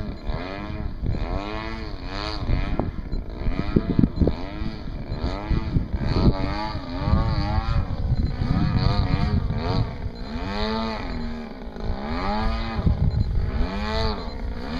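Two radio-controlled aerobatic model planes, an Extreme Flight Yak 54 and an Extra, flying aerobatics overhead. Their motor pitch rises and falls again and again, about once a second or so, as they pass and change throttle.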